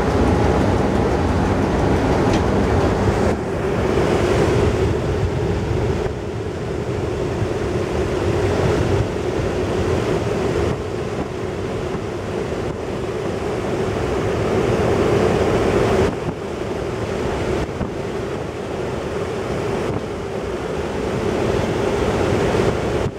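Steady rushing of wind and thrown-up snow along the cab of a Croatian Railways class 1141 electric locomotive running at about 100 km/h through deep snow, with the train's running noise beneath. The level shifts a few times.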